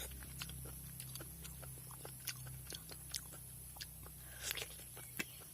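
Close-miked chewing and mouth sounds of someone eating, with irregular sharp wet clicks and smacks. A steady low hum runs underneath.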